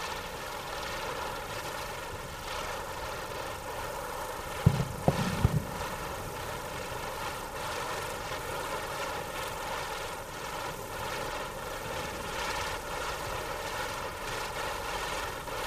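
Spinning firework grinder wheel burning with a steady hissing whine made of several held tones. A few sharp knocks come close together about five seconds in.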